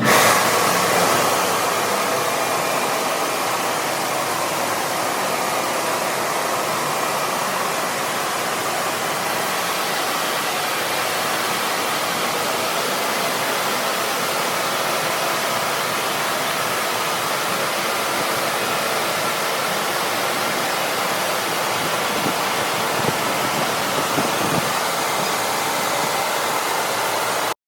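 Automatic car wash machine running: a steady, loud rushing noise that cuts off suddenly at the end.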